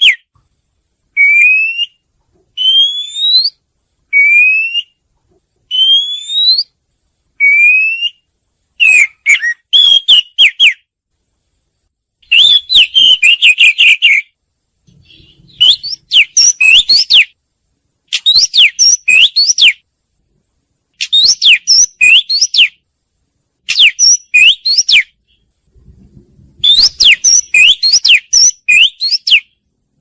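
Oriental magpie-robin singing: first a series of single rising whistles, one every second or so, then longer phrases of quick, varied whistled notes separated by short pauses.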